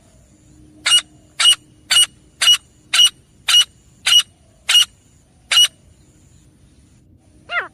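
Grey francolin calling: a series of nine sharp, evenly spaced notes, about two a second, then a pause and a single call falling in pitch near the end.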